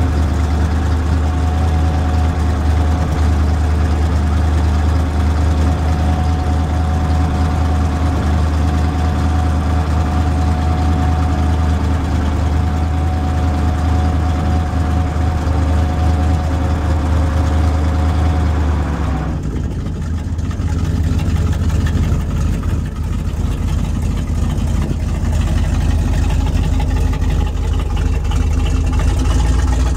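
The 366 cubic-inch gas V8 of a 1976 Chevrolet C70 grain truck running steadily with the grain box raised on its hoist. A steady whine over the engine note drops away about two-thirds of the way through, and the engine sound changes.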